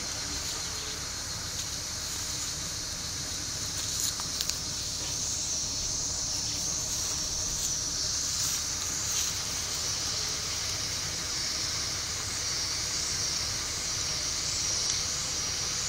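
Steady high-pitched insect drone, with a few faint clicks about four seconds in.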